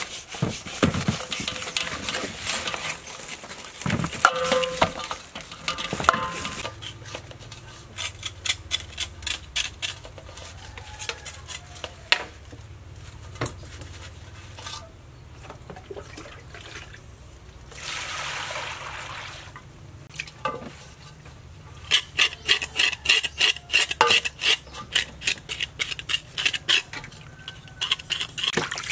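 Hands scrubbing a large snakehead fish with salt in a stainless-steel basin, with knocks and scrapes against the metal. About three-quarters of the way through comes a fast run of sharp scraping strokes as a knife scrapes the fish's skin.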